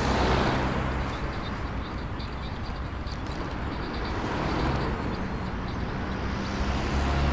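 Road traffic noise, a steady rush that swells as vehicles pass, near the start and again about five seconds in.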